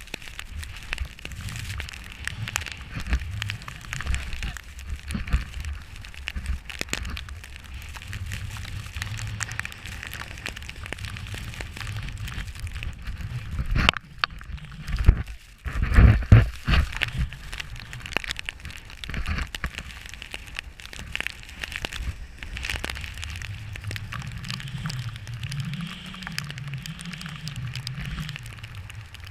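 Snowboard sliding and scraping over snow, with wind rumbling on a GoPro action camera's microphone in a snowstorm. There is a crackly hiss throughout, and a brief run of louder knocks and rushes about fifteen to seventeen seconds in.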